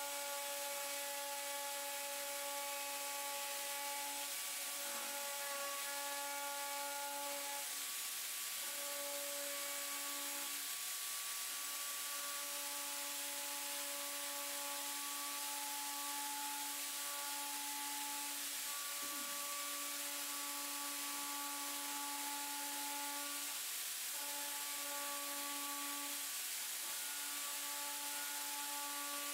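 Rotary grinding tool spinning a pointed carbide bit, grinding a V-groove across a crack in a plastic headlight tab. It gives a steady whine that breaks off briefly a few times and starts again.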